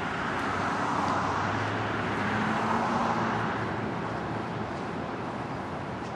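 A car passing by, its tyre and engine noise swelling over the first second, peaking around three seconds in, then fading away.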